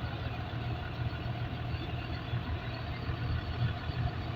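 Heavy engine idling steadily with a constant low hum.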